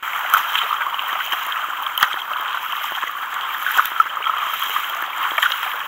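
Water splashing and washing around a kayak as it is paddled: a steady wash with small splashes and drips from the paddle blade.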